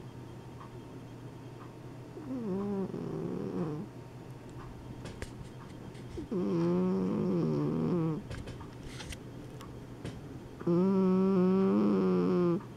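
A sleeping flat-faced cat snoring: three long snores about four seconds apart, each a buzzing, pitched breath that wavers slightly up and down.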